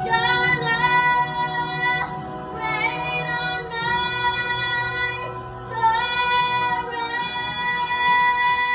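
A young girl belting long, held high notes into a handheld microphone, with a few pitch glides between them. The last note is held steady for about three seconds.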